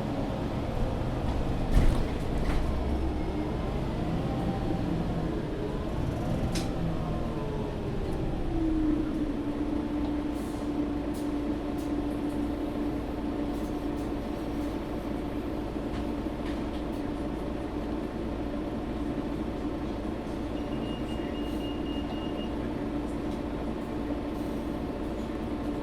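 Interior sound of a Mercedes-Benz O530 Citaro G articulated city bus. The diesel engine and drivetrain note rises and then falls over the first nine seconds or so, then settles into a steady drone. There is a sharp knock about two seconds in and a short high beep near the end.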